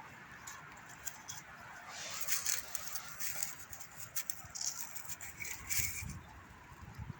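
Dry leaves and forest litter rustling and crackling, with scattered sharp clicks that are loudest about two seconds in and again near the end.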